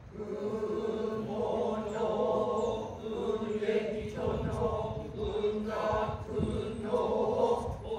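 Noh chanting (utai): voices intoning in long, nearly level tones, with short breaks every few seconds.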